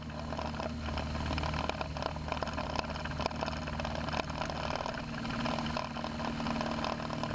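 Cessna 170's six-cylinder piston engine and propeller running steadily at low taxi power during a rolling start, a low, even drone heard from outside the airplane.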